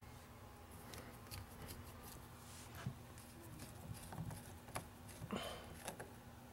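Faint, scattered light clicks and taps, like small parts or tools being handled, over a low steady hum.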